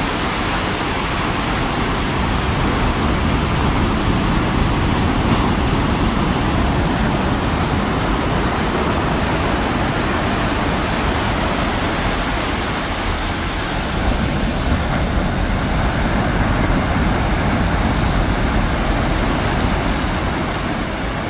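Heavy ocean surf: a steady rush of breaking waves that slowly swells and eases.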